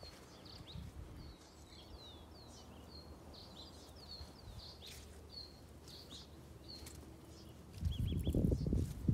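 Small birds chirping: many short, high calls, each sliding downward, repeated rapidly throughout. A much louder noise comes in near the end.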